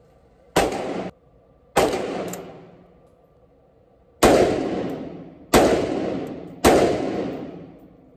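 Five single shots from a Mk18-style short-barrelled AR-15 rifle, each sharp report trailing off in the echo of an indoor range. Two come about a second apart, then after a pause of over two seconds three more follow a little over a second apart; the first is cut off short.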